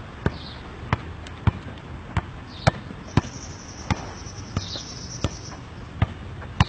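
A football being juggled with the feet: sharp, regular kicks about every half to two-thirds of a second, around a dozen touches in all. A faint thin high tone sounds through the middle.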